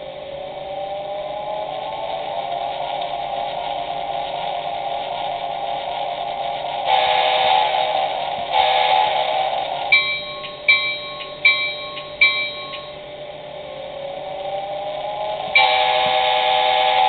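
Simulated electric-locomotive sounds from an HO-scale model's DCC sound decoder, played through its small speaker. A motor whine rises in pitch and holds. Two long horn blasts follow, then four short dings. The whine rises again and the horn sounds once more near the end.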